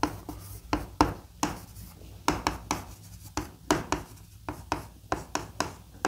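Chalk writing on a chalkboard: an irregular run of sharp taps and short scratches as each character stroke is made.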